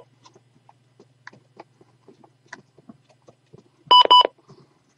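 Weather radio receiver giving a double key beep, two short high beeps, about four seconds in, as its button is pressed to scroll the display. Before that there are faint handling clicks over a steady low electrical hum.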